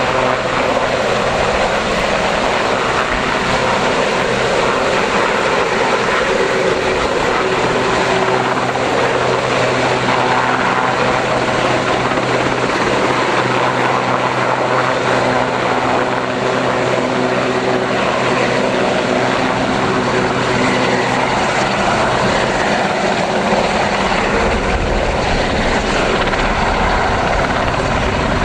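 Westland Sea King helicopter flying a display, its turbine engines and rotor making a loud, continuous sound with a steady hum. The hum fades after about twenty seconds while a low rumble grows near the end.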